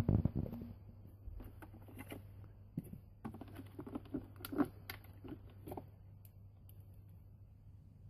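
Light clicks, taps and rattles of hands handling the plastic underside and battery compartment of a Neato robot vacuum as the cover and battery are taken out. The handling sounds come thick for about six seconds, then thin out.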